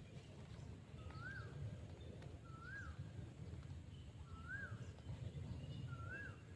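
A bird calling a short whistled note that rises and falls, repeated four times about every second and a half, over a faint low rumble.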